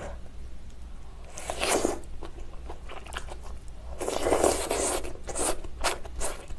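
Close-up eating sounds of spicy malatang: a wet slurp about a second and a half in, a longer, louder slurp about four seconds in, then quick smacking chewing clicks. The mouthful is scalding hot.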